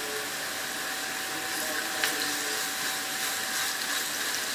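Sliced onions sizzling steadily in hot oil in a nonstick pan as garlic is added and stirred in with a spatula, with a light knock of the spatula about two seconds in.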